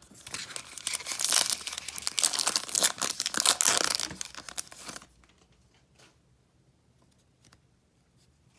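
Plastic-foil trading card pack wrapper being torn open and crinkled for about five seconds, then faint light ticks of cards being handled.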